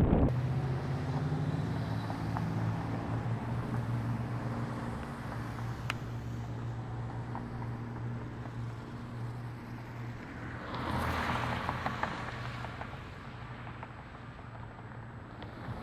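A motor running steadily with a low, even hum. A rush of louder noise, like a vehicle passing, swells up about eleven seconds in and fades.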